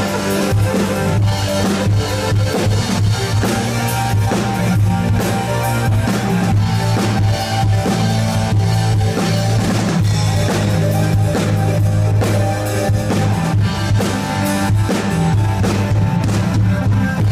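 Live rock band playing an instrumental passage during a sound check: a drum kit with steady kick and snare hits over bass and guitar, without vocals.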